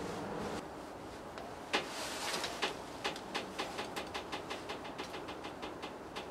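A sharp click, then a steady run of short, evenly spaced clicks, about three a second, over steady background noise.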